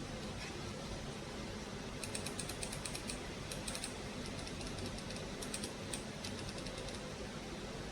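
Computer mouse buttons clicked in quick runs of small, sharp plastic clicks, several times over, against a steady low background hum.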